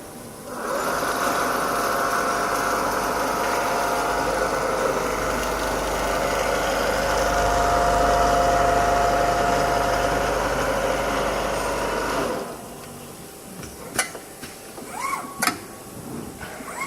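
Richpeace automatic template sewing machine running a stitching cycle. It gives a steady machine hum for about twelve seconds, then stops suddenly, and a couple of sharp clicks follow near the end.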